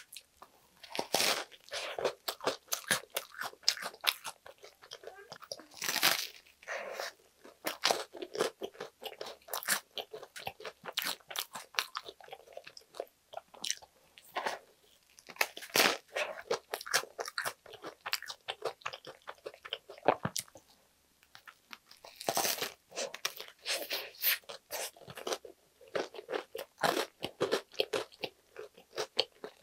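Close-miked crunching bites into the toasted crust of an air-fried BBQ pulled-pork baguette sandwich, with wet, crackly chewing in between. Several loud crunches stand out, about 1, 6, 16 and 22 seconds in.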